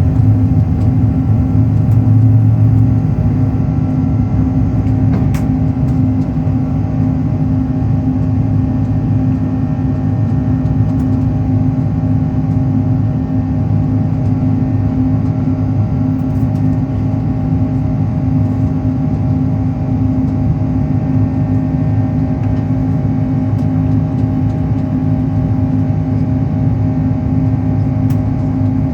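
Airbus A330-343X jet engines (Rolls-Royce Trent 700) and airflow heard from inside the cabin as a steady low drone with a constant hum, the aircraft climbing after takeoff.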